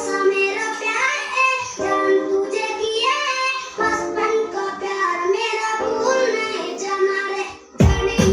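Song played through an Obage HT-144 2.1 home theatre speaker system: a high singing voice over light accompaniment. Near the end it drops away and a different, bass-heavy track with a steady beat comes in loud.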